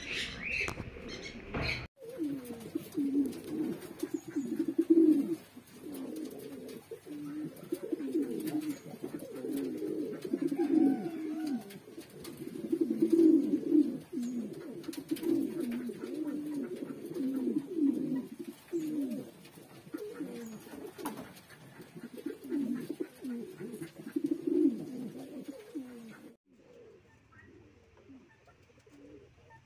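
King pigeons cooing: a long run of low, repeated coos. A brief higher-pitched chirping comes before a cut about two seconds in, and the coos turn faint near the end.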